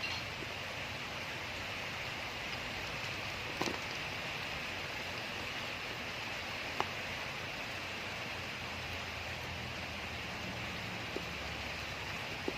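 Steady rain, with a few short clicks about four, seven and eleven seconds in.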